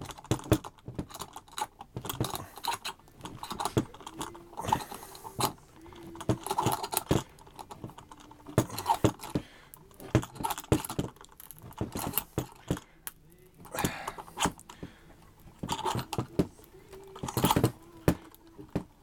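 Steel G-clamp screws being wound down by hand on a wooden cigar-box press, giving clusters of small clicks and light metal rattles from the sliding T-bar handles.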